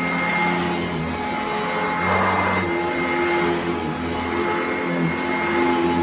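Sanitaire commercial upright vacuum running steadily as it is pushed over carpet, with a brief louder rush of noise about two seconds in.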